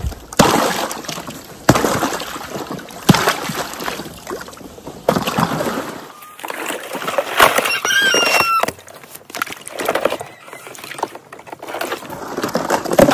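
Ice being broken and stirred in a plastic stock-water trough with a long-handled tool: several sharp cracks as the ice is struck, every second or two in the first half, with chunks of ice sloshing and splashing in the water. A brief high squeal sounds about eight seconds in.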